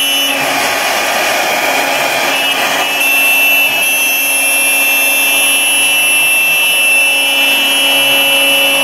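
CNC router spindle running with a steady high whine while its end mill cuts through a thick nylon sheet at about 4 mm per pass, with a rougher cutting noise strongest in the first three seconds.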